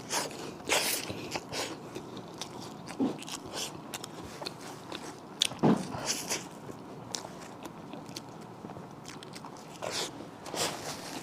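Biting into and chewing a deep-fried cream puff: irregular crisp crunches and mouth sounds.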